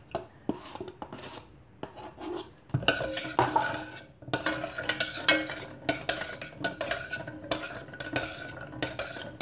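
A spoon stirring rice cakes and sauce in a pan, clinking and scraping against it. The strokes are sparse at first and come quicker and more regularly from about three seconds in.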